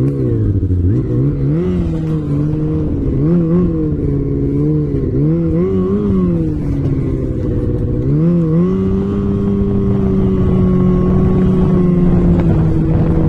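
Off-road vehicle engine revving up and down in quick repeated surges, then settling at about eight seconds into a steady, higher-pitched run under load.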